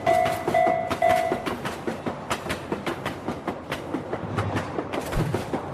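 Railroad crossing warning bell ringing about twice a second, stopping about a second and a half in, while a train's wheels clatter over the rail joints.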